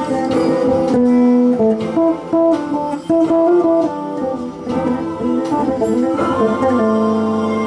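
Six-string electric bass played fingerstyle in its upper register: an improvised melodic line of quick plucked notes and some held ones.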